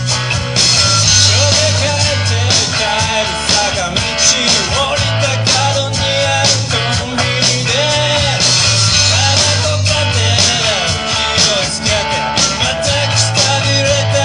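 Live rock band playing through amplifiers: electric guitars over a steady bass line and a drum kit, with a man singing.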